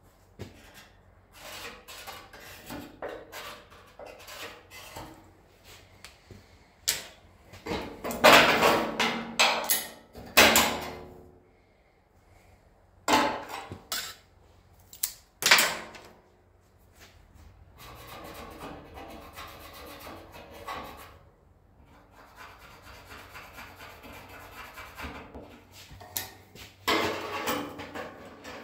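Steel repair panel being handled and worked at the bench: scattered scrapes, knocks and rattles of sheet metal. Loud clattering bursts come about eight to ten seconds in, again around thirteen and fifteen seconds, and once more near the end.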